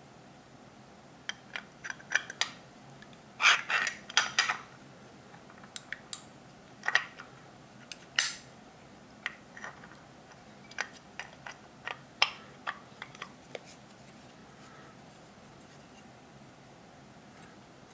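Small metal carburetor parts and hand tools clicking and clinking as the carburetor is taken apart, in scattered sharp taps with a busier cluster about three to four seconds in.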